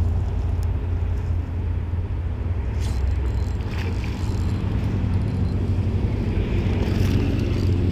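Steady low rumble, with a faint splash on the water about four seconds in.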